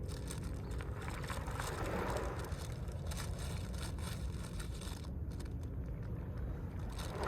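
Small Mediterranean waves breaking and washing over a pebble beach, the stones clattering in the wash. One wave surges about two seconds in and another near the end.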